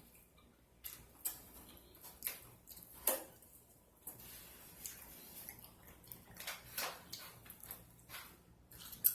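Close mouth sounds of eating chicken wings: irregular wet smacks and chewing clicks.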